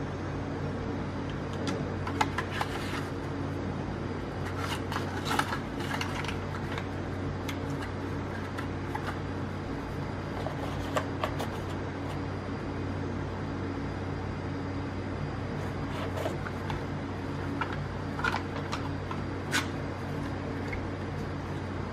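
Scattered, sparse clicks from a Logitech MX Mechanical keyboard, a few at a time with pauses between, over a steady low hum.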